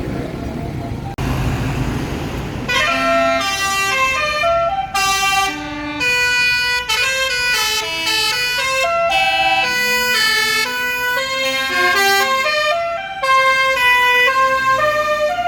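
Bus telolet 'basuri' multi-tone air horn playing a fast tune of short stepped notes, starting about three seconds in after a brief rumble of noise.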